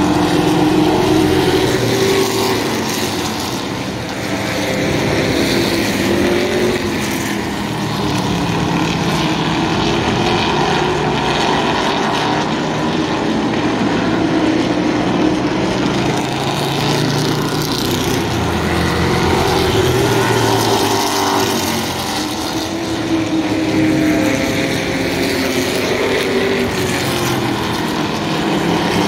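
A field of vintage stock cars, V8s and inline-sixes, running laps on a short oval. Several engines are heard at once, their pitch rising and falling as the cars accelerate, lift and pass.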